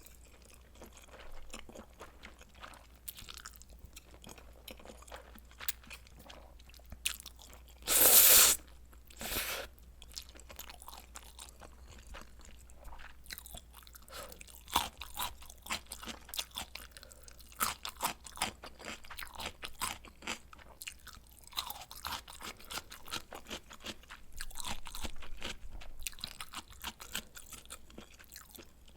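Close-miked eating sounds: a person biting and chewing food, with many small wet clicks. Two louder short bursts come about eight and nine seconds in.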